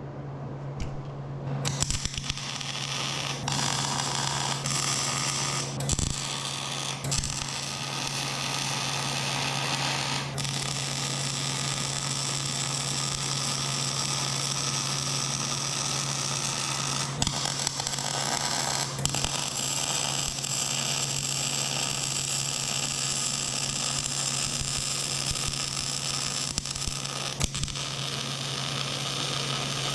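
Electric arc welding: a steady crackling hiss with scattered pops, over the welder's low hum, starting about two seconds in.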